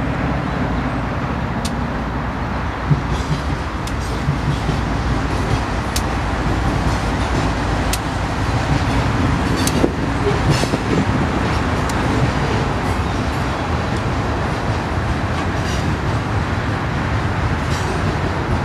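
Diesel-hauled BNSF freight train passing: the two lead locomotives' engines hum low and steady at first, then the rolling rumble of hopper and box cars carries on, with scattered sharp clicks and knocks from the wheels on the rails.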